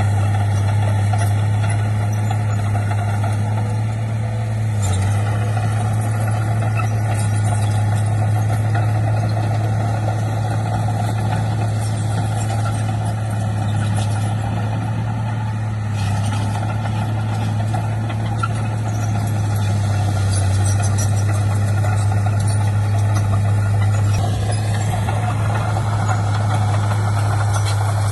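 Heavy diesel earthmoving machine engine running steadily with a constant low drone; the upper part of the sound gets a little stronger near the end.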